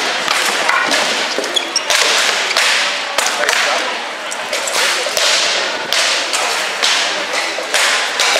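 Rattan swords striking shields and armour in a running exchange of blows, sharp cracks and thuds coming about twice a second.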